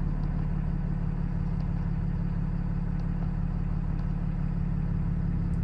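Cummins 6.7-litre inline-six turbo diesel in a Ram 5500 running steadily, an even low hum heard from inside the cab.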